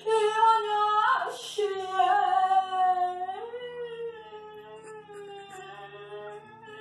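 A long, drawn-out high vocal note with slow rises and falls in pitch, over faint background music.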